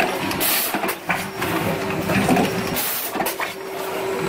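Rotary premade-pouch filling and sealing machine running: repeated mechanical clicks and clatter as it indexes, two short bursts of hiss, and a steady hum that starts about a second in.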